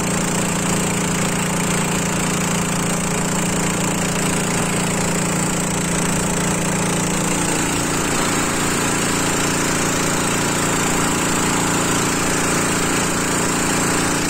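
Small river boat's engine running steadily at speed, its note shifting slightly about halfway through, over the wash of water rushing past the hull.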